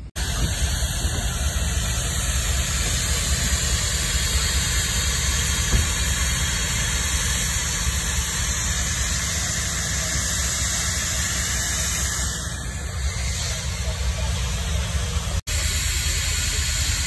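Loud, steady rushing hiss with no clear pitch, broken by a split-second dropout about fifteen seconds in.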